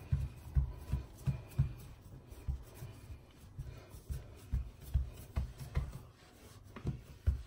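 Hands patting and pressing soft almond biscuit dough flat on a worktop: dull low thumps, about two or three a second, uneven, with a short pause near the end.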